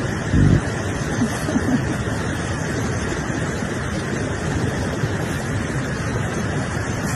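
Steady rushing noise of wind buffeting the microphone, with a couple of brief low thumps about half a second in.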